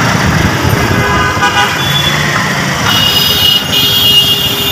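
Busy city street traffic: engines running, with vehicle horns honking. A short horn sounds about a second and a half in, and a longer, higher horn starts about three seconds in.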